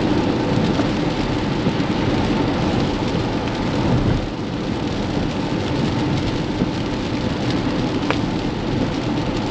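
Rain and wet-road tyre noise heard from inside a moving Tesla Model X's cabin: a steady rushing hiss over a low road rumble.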